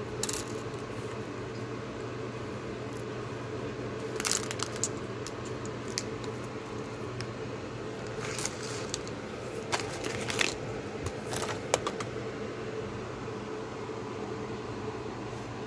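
Small packaged items being handled: scattered rustles, crinkles and light clicks, bunched around four seconds in and again from about eight to twelve seconds in, over a steady low room hum.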